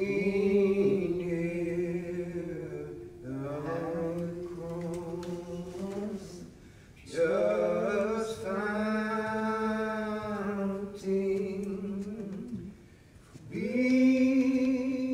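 Unaccompanied voice singing slowly, holding long notes in four phrases with short breaks between them.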